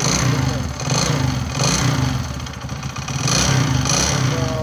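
Bajaj V15 motorcycle's single-cylinder engine running with a repeated 'kat kat' knocking from the engine. The mechanic traces the noise to a worn housing that has left a gap.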